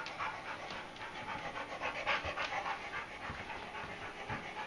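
A dog panting rhythmically.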